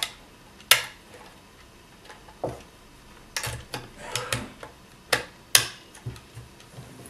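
Sharp plastic clicks and knocks of AA batteries being fitted into a battery-powered alarm clock's compartment, about eight irregular clicks with a cluster in the middle.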